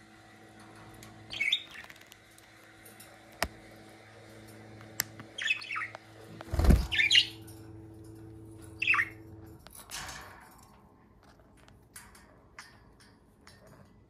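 Budgerigars giving a few short, scratchy chirps and squawks, spread across the stretch. About halfway through there is one loud thump, the loudest sound, with sharp clicks here and there and a low steady hum that stops about two-thirds of the way in.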